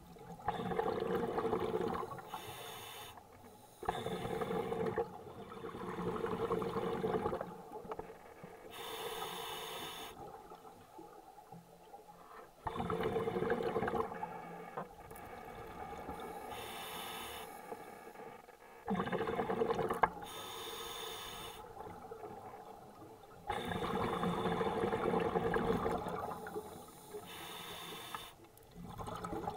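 Scuba diver breathing through a regulator underwater: short hissing inhalations alternating with longer bubbling exhalations, about five breaths in a slow, regular rhythm.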